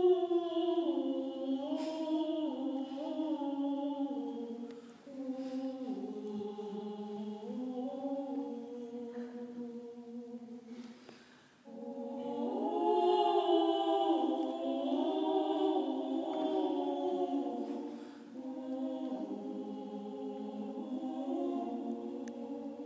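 Small women's choir singing in harmony, in four sung phrases with short breaks between them.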